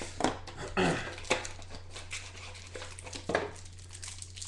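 Foil trading-card pack wrappers crinkling and rustling as they are handled, with short clicks of packs knocking together. Two brief voice-like sounds are mixed in, one about a second in and one after three seconds.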